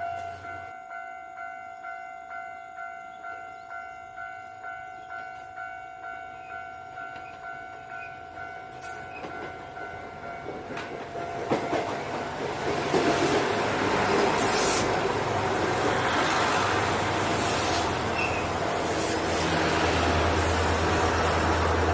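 Japanese railway level-crossing alarm ringing its repeated electronic bell at about one and a half strikes a second. From about halfway through, a diesel train approaches and runs past, loud and steady, with a low rumble near the end.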